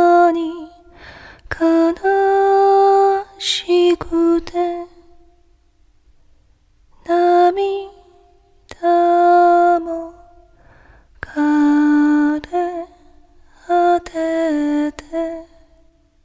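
A woman singing a slow Japanese ballad unaccompanied, in separate phrases of long held notes with short pauses between the lines.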